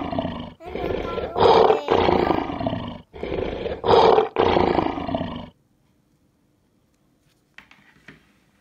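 Recorded animal roar played over and over, about every two and a half seconds, stopping suddenly about five and a half seconds in. After it, two faint clicks.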